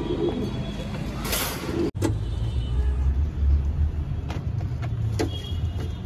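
Domestic pigeons cooing over a steady low rumble, with a couple of short sharp sounds in the second half.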